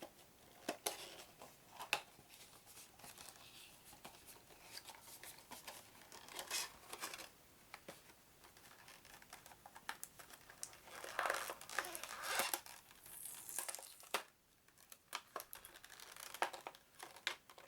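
Plastic shrink-wrap crinkling and tearing as it is pulled off a small cardboard game box, with scattered light clicks and rustles of the box being handled and opened.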